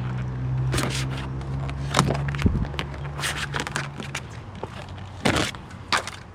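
A newly bought tool's packaging being opened by hand: irregular crackling, scraping and clicking, over a steady low hum that fades out about five seconds in.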